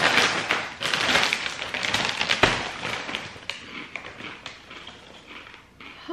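Large plastic potato chip bag crinkling loudly as it is handled, with a sharp thud about two and a half seconds in as it is set down on the table, then quieter scattered crackles.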